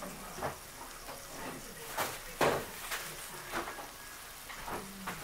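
Chicken breasts frying in butter in a nonstick pan: a low sizzle broken by scattered pops and crackles, the loudest a little after halfway.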